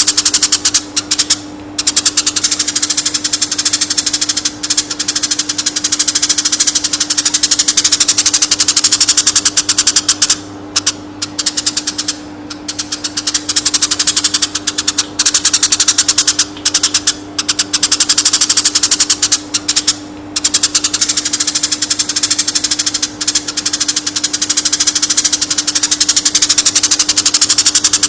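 Eurasian tree sparrows chirping in a fast, dense, almost unbroken stream, with a few brief pauses, over a steady low hum.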